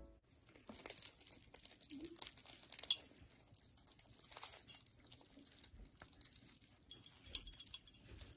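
Crisp, flaky baked puff pastry crackling and crumbling as hands pull it apart, in a run of small crackles with one sharp crack about three seconds in.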